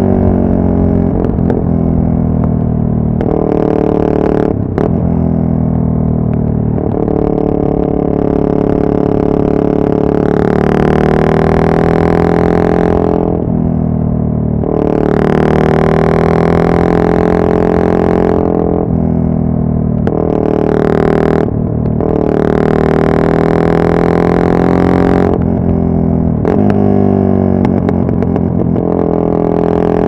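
Yamaha MT-03's 660 cc single-cylinder engine under way, a deep steady exhaust note. It swells louder and brighter several times as the throttle opens, with short breaks as it closes between pulls.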